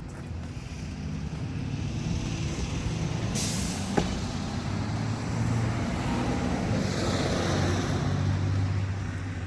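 A motor vehicle running and growing louder, with a short burst of air hiss about three seconds in and a sharp click about a second later.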